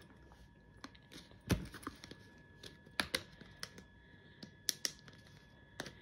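Plastic packaging of live mealworms being opened by hand: irregular sharp clicks, knocks and crinkles, the loudest a knock about one and a half seconds in.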